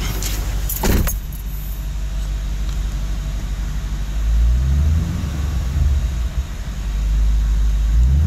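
2009 Mustang GT's 4.6-litre V8 with Flowmaster exhaust idling a little rough, the new cold air intake fitted but the engine not yet retuned, then revved up and settling back, with a short click about a second in.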